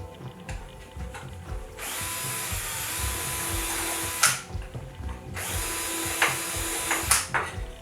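A small power drill runs twice, first for about two and a half seconds and then for under two seconds, a steady whine over a hiss. Each run ends in a sharp click, and a few more clicks follow near the end.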